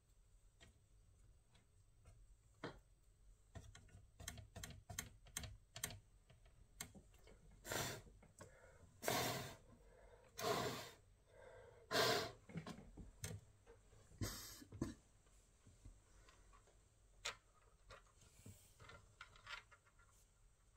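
Irregular light clicks and taps on a laptop, with a run of louder half-second scraping noises between about eight and thirteen seconds in; the loudest comes about twelve seconds in.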